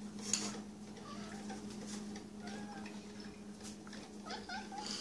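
Domestic cats meowing faintly a few times, short calls near the middle and again near the end, over a steady low hum. A sharp click sounds about a third of a second in.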